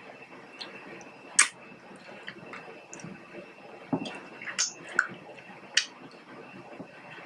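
Close-up eating sounds of king crab meat: short wet mouth smacks and chewing, the loudest about a second and a half in, with a few quieter clicks and squelches later.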